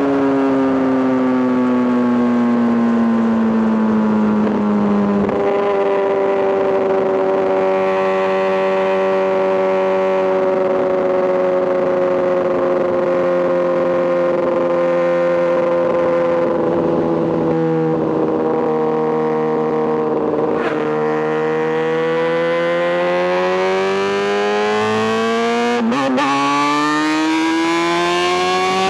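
Kawasaki ZX-6R inline-four engine and exhaust running under load. Its pitch falls over the first five seconds, jumps up about five seconds in, holds nearly level for a long stretch, then climbs steadily over the last several seconds as the revs build.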